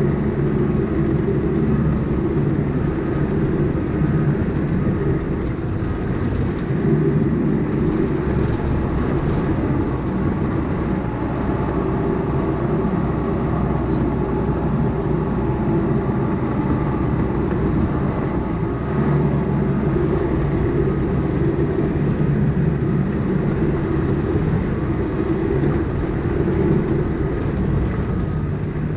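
Cat D5K crawler dozer's diesel engine running steadily under load, with bursts of light clicking from the tracks and undercarriage.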